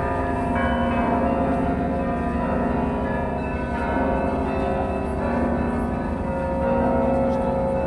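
Orthodox cathedral bells ringing together, with many overlapping bell tones ringing on without a pause.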